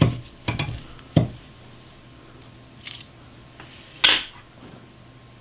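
Metal clicks and knocks of a hand-operated watch crystal press being set and tightened on a watch case, then one sharp, loud click about four seconds in as the old mineral crystal pops out.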